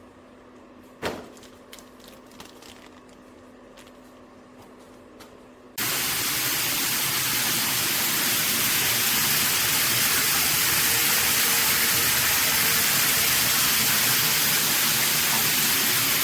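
A knock and a few small clicks, then, about six seconds in, the shower comes on with a sudden loud, steady hiss of high-pressure water spraying from the shower head.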